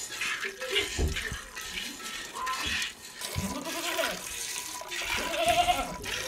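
Cow being milked by hand: streams of milk squirting into a metal pot, a hissing stroke about once a second. A farm animal calls twice in the background, in the second half.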